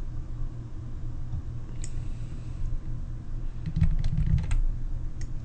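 Scattered clicks of a computer mouse and keyboard, heard over a steady low hum. There is one click about two seconds in, a quick run of several clicks around four seconds in, and one more near the end.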